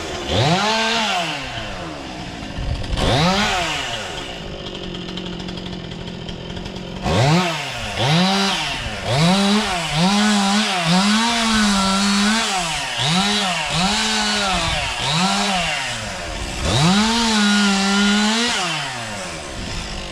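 Two-stroke chainsaw being throttled up and down about ten times, with each rev climbing steeply and dropping back. A few are held briefly at full speed, and it idles for a few seconds around the middle.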